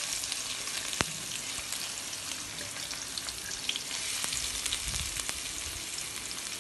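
Sliced onions sizzling and crackling in hot oil as they are dropped by hand into a steel kadai, with a sharp tap about a second in.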